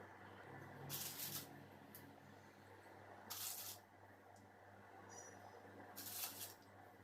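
Three short, soft grainy rustles, about two and a half seconds apart, over a faint steady low hum: coloured rangoli powder being handled and let fall between the fingers while a freehand rangoli is drawn.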